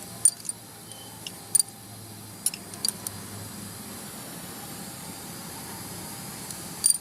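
Scattered sharp metallic clinks of tools and engine parts being handled during engine teardown, about six in all with the last near the end, over a steady low hum.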